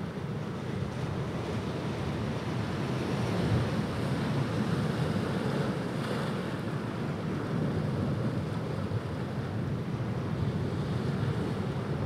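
Ocean surf: waves breaking and washing in, a steady low rush that swells to a peak about four to six seconds in.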